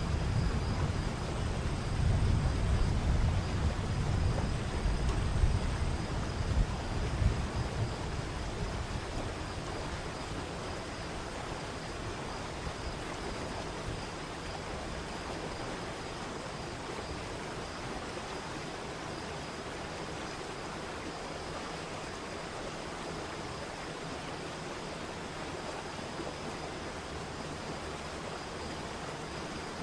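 Steady rush of falling water from a waterfall. A deep rumble of thunder rolls under it for the first several seconds and fades out.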